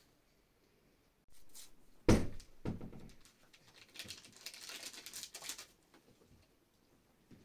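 A heavy thud, then a second, softer one, followed by about a second and a half of crinkling rustle, as of something being handled or set down.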